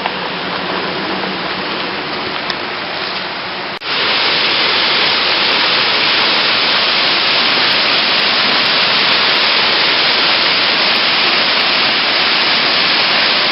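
Waterfall rushing: a steady noise that suddenly gets louder and brighter about four seconds in.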